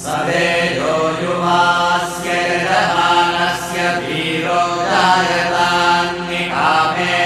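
Vedic mantra chanting: a voice reciting in a melodic chant over a steady held drone, starting abruptly at the beginning.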